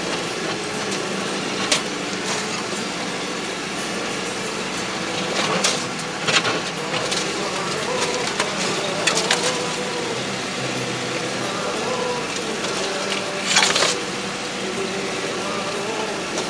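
The engine of a homemade all-terrain vehicle runs steadily as it drives through snowy brush. A few sharp knocks and clatters come in over it, the loudest about fourteen seconds in.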